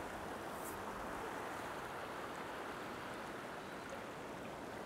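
River water flowing over stones in shallow riffles: a steady, even rush of water.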